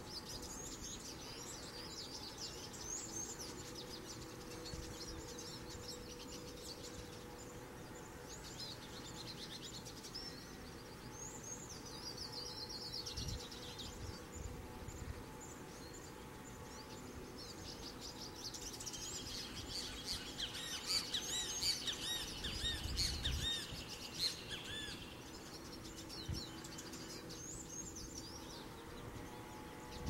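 Hooded siskin singing: long runs of fast, twittering, trilled notes in several bouts, the fullest and loudest about two-thirds of the way in, over a faint steady hum.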